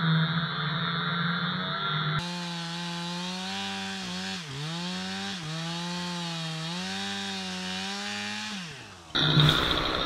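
Two-stroke chainsaw running at full throttle, cutting through a fallen tree trunk. Its engine note sags briefly twice under load and drops off just before the nine-second mark, then returns much louder and closer as the saw cuts again near the end.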